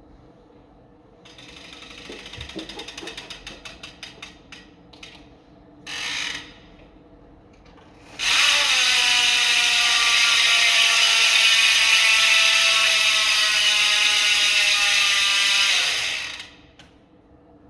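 Toy blaster's mechanism: a run of rapid mechanical clicks, slowing and thinning out, then a short motor burst. After that its electric motor runs loudly for about eight seconds with a high whine, dipping slightly in pitch, and stops.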